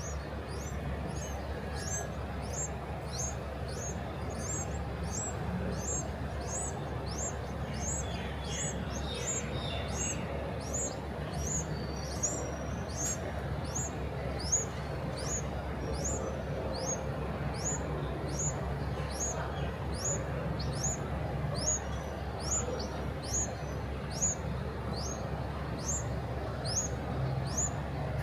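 Small bird giving a thin, high chirp that sweeps downward, repeated steadily about twice a second over a low background hum.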